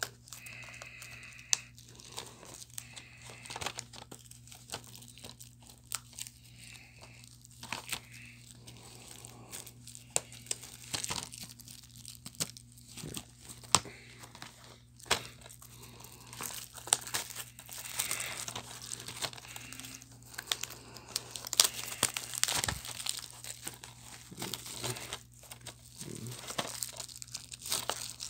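Plastic wrapping on a DVD box set crinkling and tearing as it is picked and pulled off by hand, in irregular crackles with sharp snaps and clicks.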